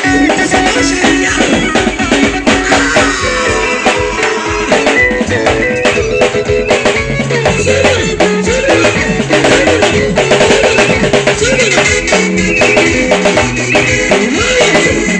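A live band playing worship music, with drum kit, bass guitar and voices singing.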